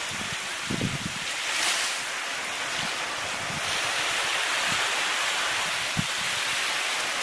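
Steady rush of sea surf on a rocky shore, swelling briefly about two seconds in, with wind buffeting the microphone in a few short low gusts.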